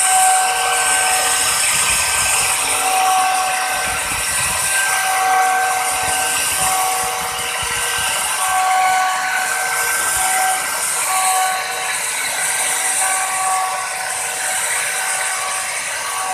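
Crown electric plunge router (CT11001) running at speed, its bit cutting a pattern into a wooden panel: a steady high motor whine whose pitch wavers a little as the bit bites, over a hiss of cutting.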